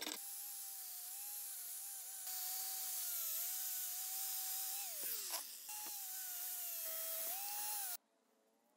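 Angle grinder with a wire cup brush spinning against the metal gear housing of a cutter, scrubbing off rust and grime; its steady whine wavers and sags as it is pressed on. About five seconds in the pitch slides down, then comes back up, and the sound stops abruptly near the end.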